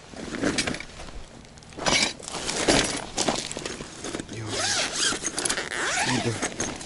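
The zip of a fabric fishing-rod holdall being pulled open in several rasping strokes, the loudest about two to three seconds in.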